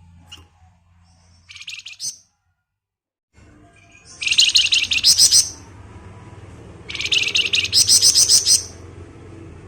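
Flamboyan songbird singing its rapid, buzzing trill ('ngebren') in three bursts: a short one early, then two longer ones of about a second and a half each, with a low steady hum between them.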